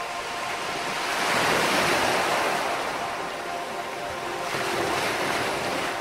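Ocean surf washing ashore, swelling to its loudest about one to two seconds in and again more gently near five seconds, from a mixed beach-ambience track.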